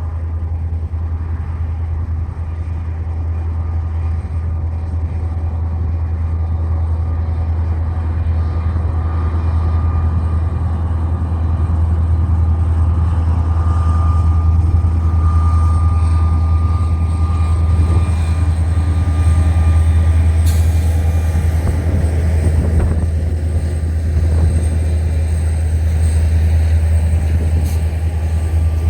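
Train running with a steady low rumble that grows louder over the first half and then holds. A faint high tone comes in partway through, and there is a single sharp click later on.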